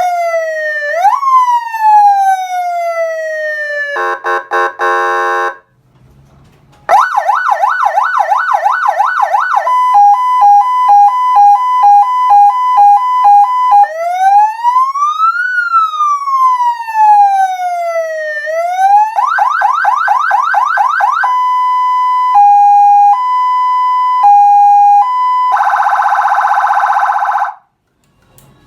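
Electronic emergency-vehicle siren stepping through its tones: a wail that rises and falls, a short harsh buzz, then after a brief pause a rapid yelp, a hi-lo two-tone, a slow wail, the yelp again, a slower hi-lo, and a harsh horn tone that cuts off near the end.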